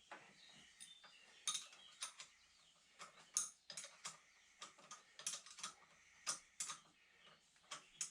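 Irregular sharp metallic clicks and clinks of hand tools working on metal parts, a few each second.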